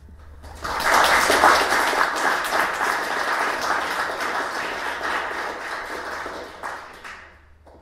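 Audience applauding: the clapping starts abruptly about half a second in and fades out near the end.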